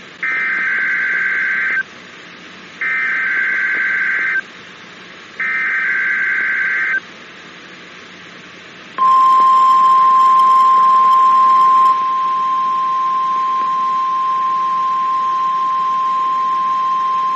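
NOAA Weather Radio SAME header: three bursts of warbling digital data tones, each about one and a half seconds long with a second between them. After a two-second pause comes the single steady 1050 Hz warning alarm tone, louder for its first three seconds. It is sounded as the weekly test of the public warning system.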